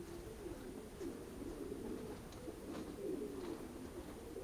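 Domestic racing pigeons cooing, several low wavering coos overlapping without a break, with a few faint clicks among them.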